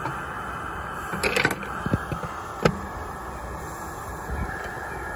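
5-inch gauge LNER B1 live-steam locomotive running with its riding car on a raised track: a steady rushing noise with irregular clacks and knocks, the loudest a cluster about a second and a half in and another near three seconds.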